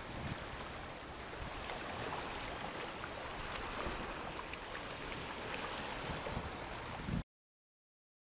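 Shallow sea water washing steadily over a rocky shoreline. About seven seconds in, the sound cuts off to silence.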